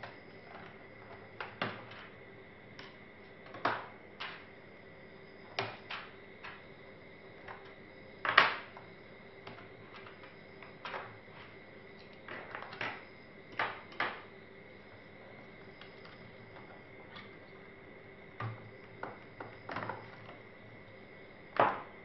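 Irregular light clicks and taps of hand tools and small parts against a Sony Vaio laptop's plastic case as it is taken apart. The sharpest knock comes about eight seconds in and another near the end.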